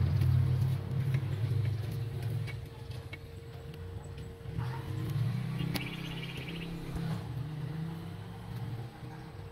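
A motor vehicle engine running steadily, a low hum that is loudest in the first two seconds and then softer.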